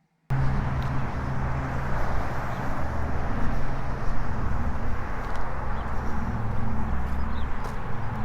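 Steady outdoor rumble and hiss, starting abruptly a fraction of a second in, with no speech.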